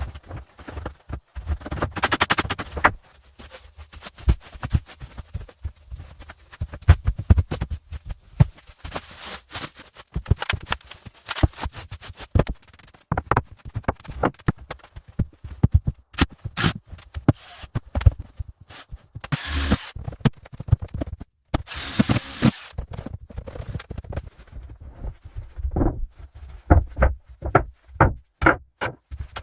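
Irregular clicks, knocks and scraping, with a few brief rustling bursts, like objects being handled.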